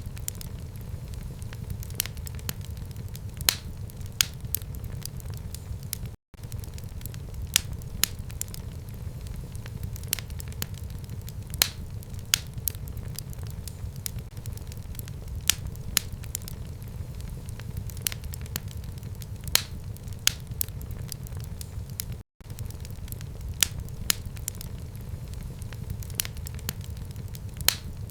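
Wood fire burning in a home fireplace: a steady low rumble of flame with frequent sharp, irregular crackles and pops. The sound drops out completely for an instant twice, about 6 and 22 seconds in.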